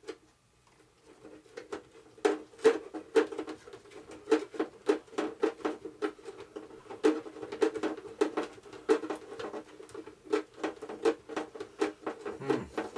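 A quick, irregular run of small clicks and squeaks, a few a second, as an end fitting is twisted onto the threaded end of an RC plane's rudder control rod. It starts about a second in.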